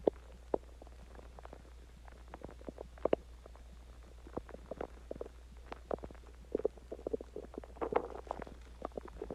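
Human stomach growling and gurgling while digesting a meal and water: irregular short gurgles and pops, busiest about six to eight seconds in, over a steady low hum.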